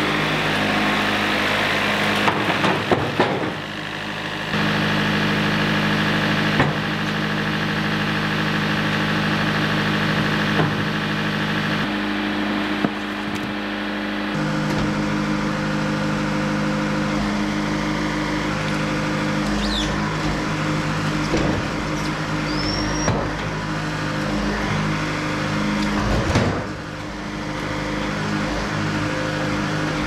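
Wood-Mizer LT70 sawmill's Yanmar diesel engine running steadily while the mill's hydraulics clamp and turn the log. The engine note shifts about four seconds in as the hydraulics take load, and there are short knocks of the log against the clamps now and then.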